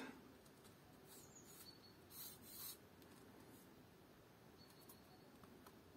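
Near silence, with faint rubbing and rustling of fingers on a thin, light glider tail surface as it is handled, a couple of brief soft scrapes about two seconds in.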